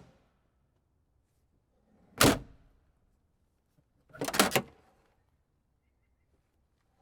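Car trunk lid slammed shut with a single heavy thud about two seconds in. About two seconds later comes a quick cluster of latch clicks and knocks as the trunk is worked again.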